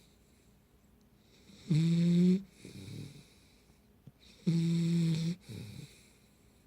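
Pit bull puppy snoring in its sleep: two loud snores on the in-breath, about three seconds apart, each followed by a softer, breathy out-breath.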